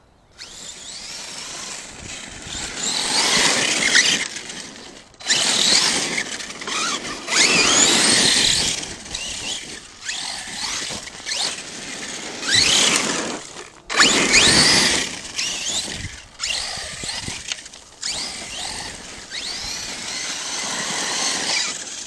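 ARRMA Kraton 6S RC monster truck's brushless electric motor whining up in pitch in repeated throttle bursts as the truck accelerates, with its tyres hissing on loose dirt.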